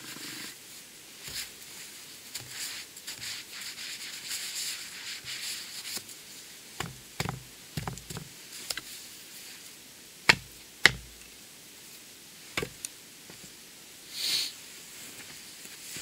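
Snow being brushed and crunched, with several sharp wooden knocks as a hatchet is handled on snowy log stumps; the two loudest knocks come close together a little past the middle, and a brief rustle follows near the end.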